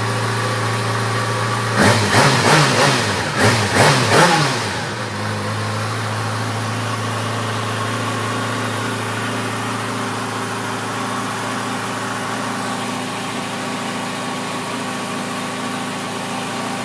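Sport motorcycle engine idling, then revved in a quick run of about six short throttle blips about two seconds in, each rising and falling sharply, before it settles back to a steady idle.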